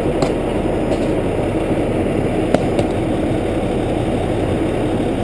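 Fish stocking truck's engine idling steadily, with a couple of light clicks about a quarter second in and halfway through.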